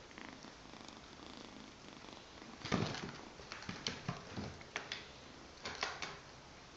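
An exotic shorthair kitten's paws thudding and scrabbling on a cloth-covered table as it pounces, a series of irregular soft thumps starting about three seconds in.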